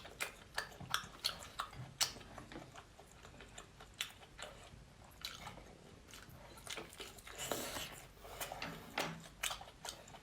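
Close-miked eating of spicy seafood stew: wet chewing and biting with irregular smacking clicks. There is a longer noisy sound about seven and a half seconds in.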